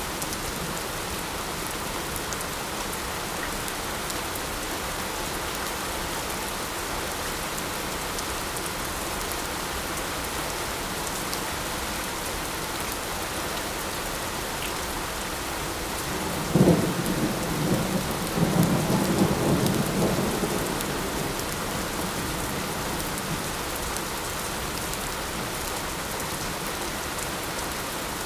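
Steady light rain falling, with a clap of thunder about sixteen seconds in that sets off a low rumble lasting a few seconds, then dies away.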